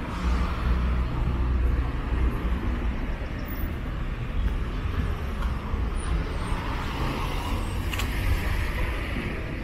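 Road traffic on a city avenue: cars driving past, their tyre noise swelling and fading over a steady low rumble, with a brief click about eight seconds in.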